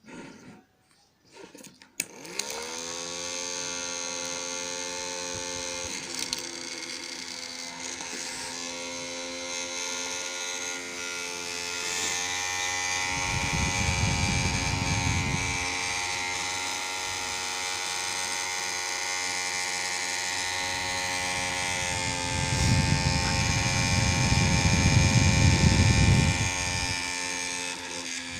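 Small DC motor of a homemade table fan switched on with a click about two seconds in, its whine rising quickly and then holding a steady pitch. Two spells of low rumble come through over the whine, in the middle and near the end.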